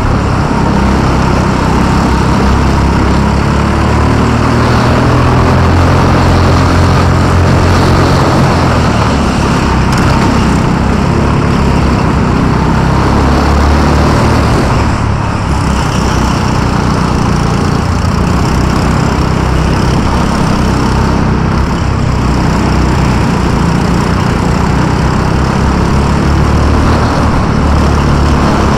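Go-kart's small petrol engine running close under the driver, its pitch rising and falling as the throttle goes on and off through the corners.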